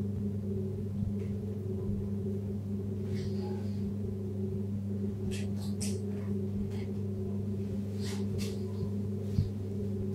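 Steady low hum, with a few faint short rustles and scratches as a short-toed snake eagle shifts in wood shavings while eating a snake, and a soft thump near the end.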